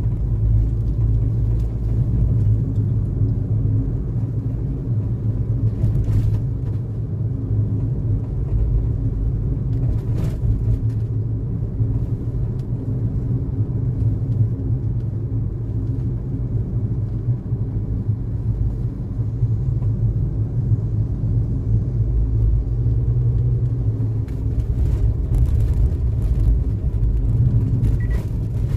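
Steady low rumble of a car driving, road and engine noise with no change in pace, and a few faint clicks.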